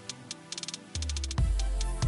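Background music with fast, even ticking percussion; a deep bass comes in about a second in.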